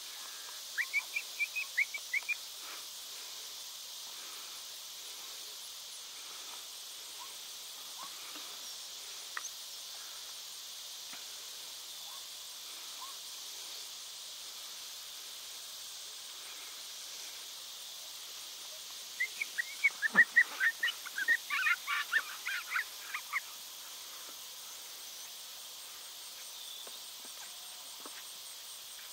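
Steady high buzz of insects in a grass field, with two brief runs of quick, high chirping calls, one about a second in and a longer, louder one about twenty seconds in.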